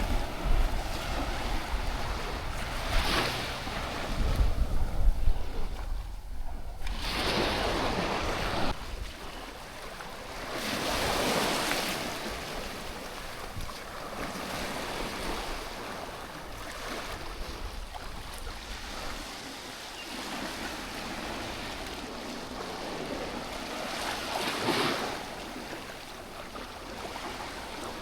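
Small waves washing up the beach, each swelling and fading in turn, about four of them, the biggest early on. Wind buffets the microphone with a low rumble during the first few seconds.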